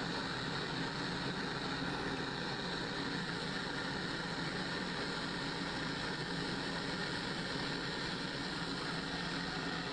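Propane gas burner flame running with a steady, even rushing noise.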